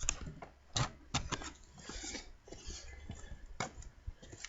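Light clatter of things being handled: scattered clicks and a few sharp knocks, over a faint low hum.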